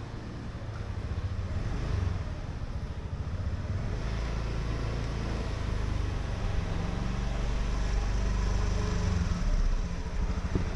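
Street traffic: engines of passing vehicles, likely motorbikes, running as a steady low rumble that swells from about four seconds in and eases near the end.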